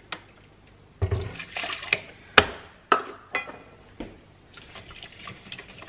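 Milk pouring from a plastic water bottle into a bowl, with several sharp knocks and clicks of the bottle and bowl being handled, the loudest about two and a half seconds in.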